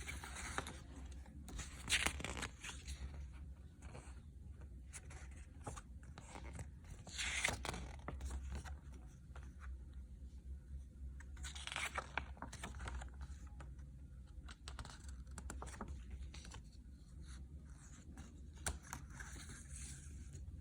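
Plastic wrapping on a CD being torn and peeled off, in separate tearing bursts about 2, 7, 12 and 19 seconds in, with crinkling and small clicks between.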